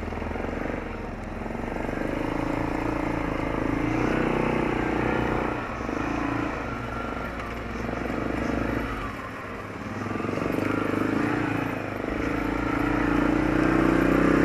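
Arctic Cat 650 H1 ATV's single-cylinder four-stroke engine running while riding, its pitch and level rising and easing several times as the throttle changes, loudest near the end. The engine is on its break-in shakedown run after a rebuild with a Wiseco piston.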